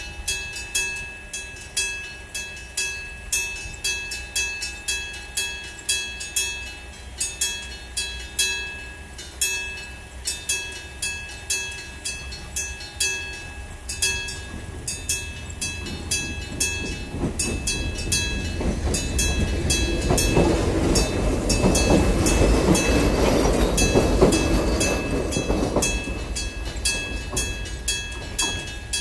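Level-crossing alarm with an AC electric bell striking steadily, about three strikes every two seconds. From about sixteen seconds in, a train passes over the crossing, loudest a little past the middle, then fades while the bell keeps ringing.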